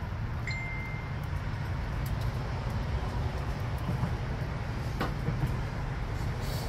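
Low, steady rumble of wind buffeting the microphone, with a faint click about five seconds in. Near the end a hiss begins as boiling water starts pouring from an all-metal camping percolator into a glass French press.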